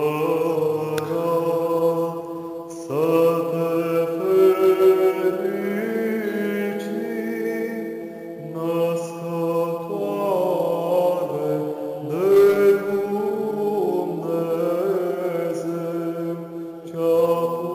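Byzantine-style Orthodox chant: one male voice sings a slow, ornamented melodic line over a steady held drone (ison) sung by a second male voice.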